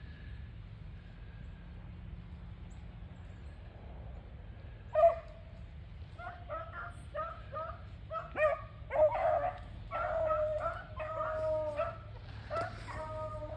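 A pack of rabbit hounds giving tongue as they run a jumped rabbit through the brush. After about five seconds one dog opens with a loud bark, then several dogs join in with repeated, overlapping bays.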